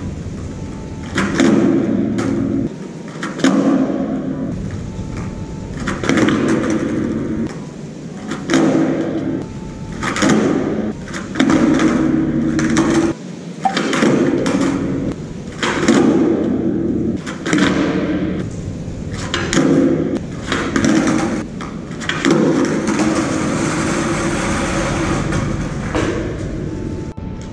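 Skateboard on rough concrete: the wheels roll in short runs, broken by repeated sharp pops and clattering board landings from pop shove-it attempts, echoing off concrete walls.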